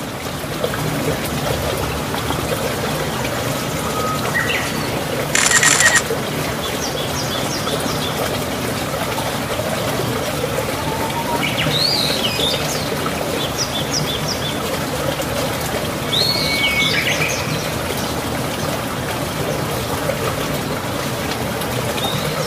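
Heavy rain pouring down steadily over the pond and grass bank. A few short chirps sound over it, and there is one brief louder noise about five seconds in.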